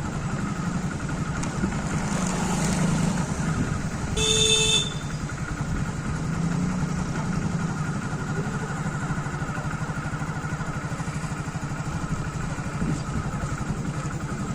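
Hero Splendor motorcycle's single-cylinder four-stroke engine running with a steady pulsing beat. A short horn beep sounds about four seconds in.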